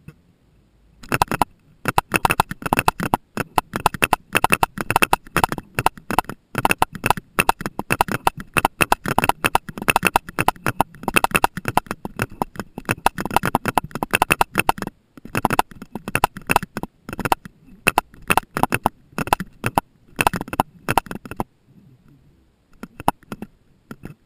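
Rapid, irregular clicks and knocks, many each second, picked up by a deep-water camera in its underwater housing. They start about a second in and stop a few seconds before the end, with a few more just after.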